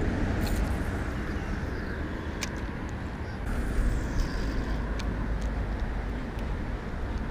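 A few light clicks from a spinning reel and rod being handled, over a steady low rumble.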